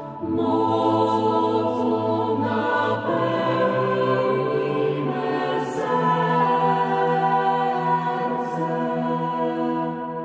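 Church choir singing a slow hymn in long, held chords that change every few seconds, fading near the end.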